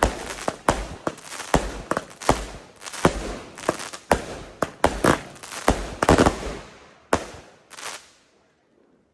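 500-gram consumer firework cake firing its last shots: a rapid string of sharp aerial bangs, about two a second, that thins out and stops about eight seconds in.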